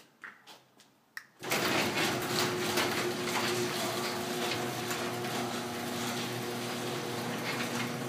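A click about a second in, then a residential garage door opener runs steadily as the sectional garage door rolls down its tracks. The door's sagging centre section is braced with a 2x4 screwed across it, and it closes smoothly, without the popping and dropping it had before the fix.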